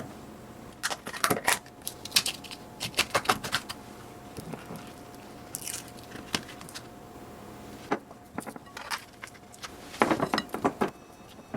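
Irregular clusters of light clicks, taps and clinks from kitchen items being handled as cheesecake ingredients and utensils are prepared, over a faint steady hum.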